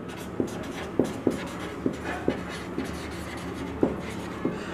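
Marker pen writing a word on a whiteboard: about eight short strokes and taps, unevenly spaced.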